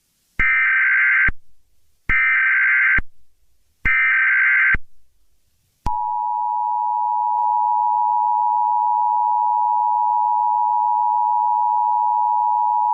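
Emergency Alert System tones: the SAME digital header sent three times as short buzzing data bursts. About six seconds in, the steady two-tone EAS attention signal begins and holds.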